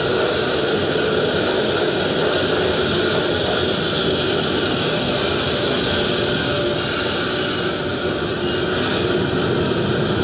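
Recorded sound effect of a train running on rails, a steady dense rumble with a thin wheel squeal from about six to nine seconds in, played over a stage sound system.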